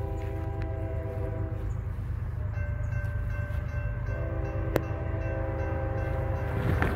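Horn of an approaching CSX freight locomotive sounding long chord blasts for the grade crossing: one ends about a second and a half in, and a second is held from about midway until near the end. The crossing activates partway through, and its electronic bell starts ringing along with the horn.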